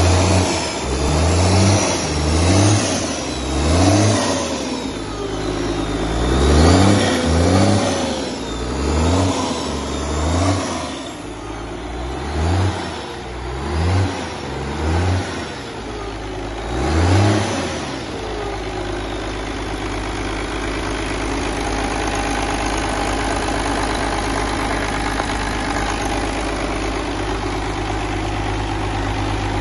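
1993 International DT466 inline-six turbo diesel on a test stand, being test-run. Its throttle is blipped over and over, the engine note rising and falling about once a second for roughly the first two-thirds. After that it settles into a steady idle.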